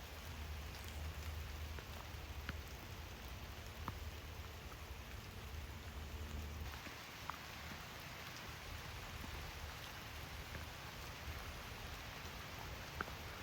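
Steady rain falling, an even hiss with scattered louder single drops. A low rumble underneath stops about halfway through.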